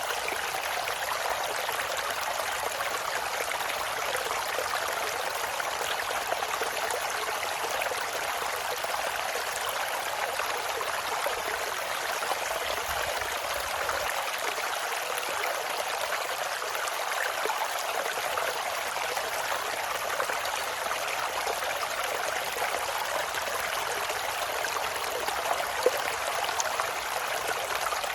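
Mountain stream flowing over rocks: a steady rushing and splashing of water.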